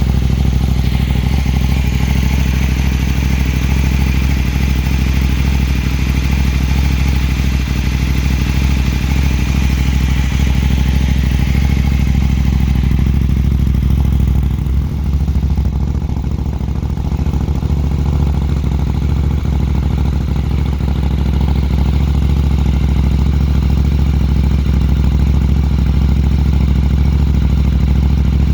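Husqvarna Norden 901's parallel-twin engine idling steadily through an Arrow mid-pipe (catalytic converter deleted) and an Akrapovic muffler.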